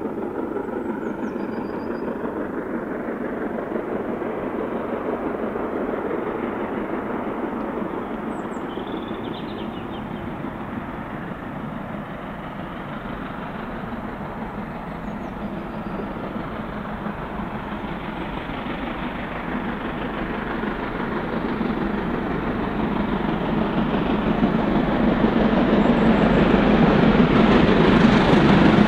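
LNER B1 class 4-6-0 steam locomotive working hard at about 65 mph with its excursion train: a steady din of exhaust and running noise that grows louder over the last third as the train draws near. A few faint bird chirps sound above it.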